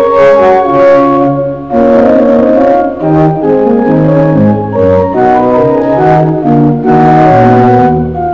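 Church pipe organ playing a slow chordal postlude: full held chords that change every second or so over a moving bass line.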